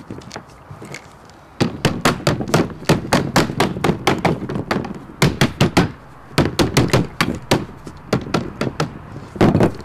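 Sheet lead being bent over by hand with rapid tapping blows from a lead-dressing tool. The knocks begin about one and a half seconds in and come in quick runs of roughly five or six a second, broken by short pauses.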